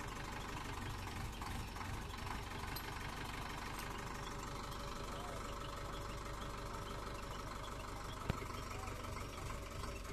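Mobile crane's diesel engine idling steadily, with one sharp click about eight seconds in.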